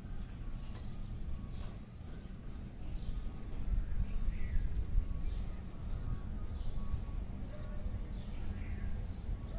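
Birds calling: short high chirps and descending whistles, about one or two a second, over a steady low rumble.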